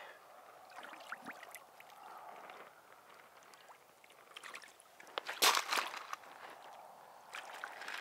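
Shallow water sloshing and splashing as a large catfish is eased back in and released, with a louder burst of noise about five and a half seconds in.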